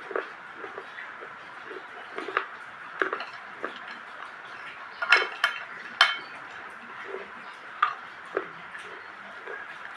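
Dried crunchy clay being crushed and crumbled, making irregular sharp cracks and crunches over a soft steady crackle. The loudest cracks come in a cluster about five to six seconds in.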